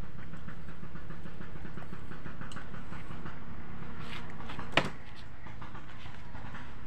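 Faint small ticks of a knife slicing ginger held in the hand, then one sharp clack about five seconds in as the knife is put down on the table, over a steady low background rumble.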